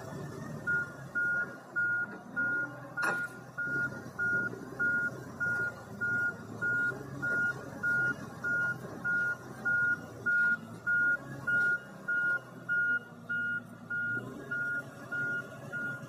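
Wheel loader's reversing alarm beeping steadily, a little under two beeps a second, over its diesel engine running, as the log loader backs away carrying a log. A single sharp knock about three seconds in.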